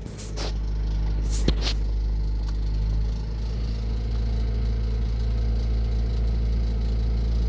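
Toyota Camry engine idling steadily, with a few sharp clicks in the first two seconds. The rattle it is being checked for is still there but not as bad.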